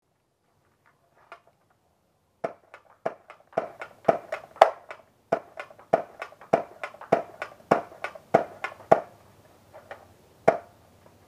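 Modified Lawbringer foam-dart pistol firing a rapid string of shots. Each sharp snap comes slightly under two a second, with quieter mechanical clicks between them. One last shot comes near the end after a short pause.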